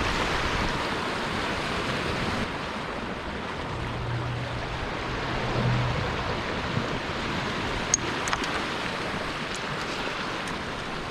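Sea surf washing on a rocky shore, a steady rushing noise, with a faint low hum for about two seconds midway and a few light clicks near the end.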